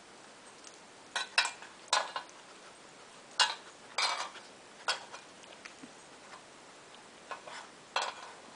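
Metal muffin tin clinking and clanking as a small dog noses and paws through its cups for treats: irregular sharp clicks, some in quick pairs, about eight in all.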